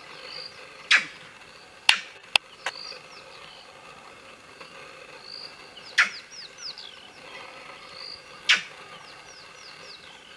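Vervet monkeys giving short, sharp alarm calls at a hunting leopard, three loud calls spaced a few seconds apart, with two sharp clicks around the first call. Faint high bird chirps sound in between, each one falling in pitch.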